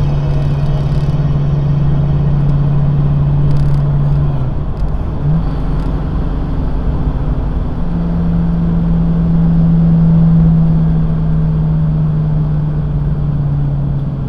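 1970 Mustang convertible's engine and exhaust droning steadily at cruise over road rumble. The drone breaks off about four seconds in, with a brief rise in pitch, and comes back a little higher a few seconds later.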